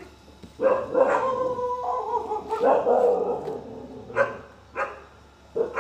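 Puppies play-fighting: a long, drawn-out cry in the first half, then three short barks about half a second to a second apart.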